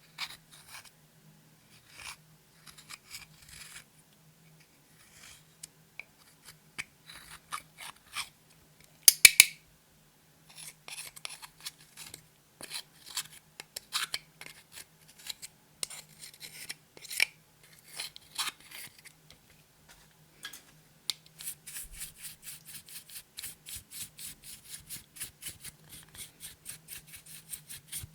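Clear slime being mixed with makeup and glitter, with irregular sticky clicks and crackles as it is pressed and pulled. Three sharp, loud clicks come about a third of the way in, and a fast run of small clicks fills the last several seconds.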